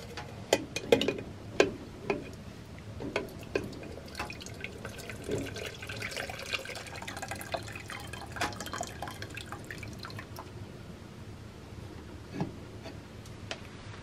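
Water running from the brass spigot of a Kni-Co Trekker wood stove's water-heater tank into a metal pot, splashing and trickling, strongest in the middle and thinning out toward the end. A few sharp clinks of the pot and its wire handle come in the first couple of seconds, and a single knock comes near the end.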